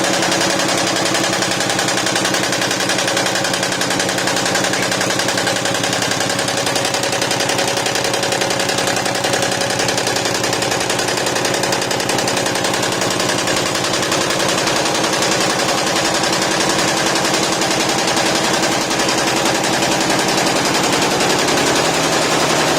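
YBD164 multi-needle quilting embroidery machine (64 needles) stitching: a loud, steady, rapid mechanical clatter of the needle strokes with a running motor hum underneath.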